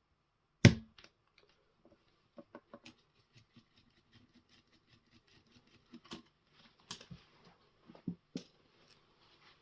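Handling noise: one sharp knock a little under a second in, then scattered light clicks and knocks.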